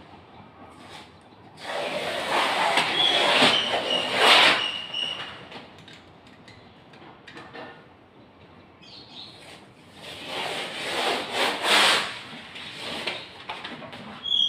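Old wallpaper being peeled and torn off a wall by hand, in two long ripping pulls, one about two seconds in and one about ten seconds in. There is a short squeak during the first pull and softer rustling between the pulls.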